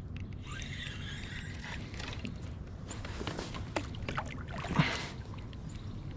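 Clicks, knocks and scrapes of gear handled aboard a small boat or kayak on the water, over a low steady rumble, with one sharp knock near the end.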